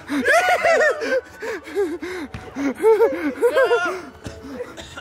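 People laughing and gasping in short bursts of voice.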